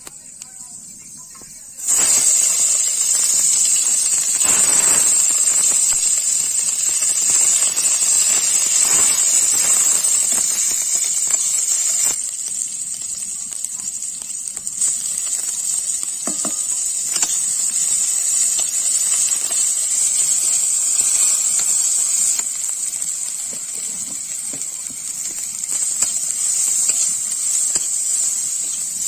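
Sliced onions and panch phoron frying in hot oil in a wok: a loud sizzle starts suddenly about two seconds in and carries on steadily, easing a little about halfway through.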